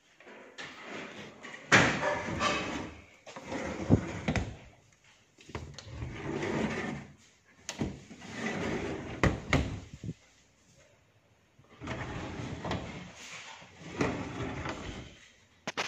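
Aluminium-framed cabinet doors with ACP panels being handled, opened and closed: several rubbing, rattling swells of a second or two each, with sharp clicks and knocks from the frames and catches.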